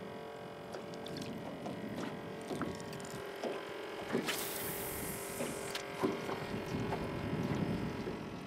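Steady electric hum of a small motor with a few light ticks over it, and a brief rush of hiss about four seconds in.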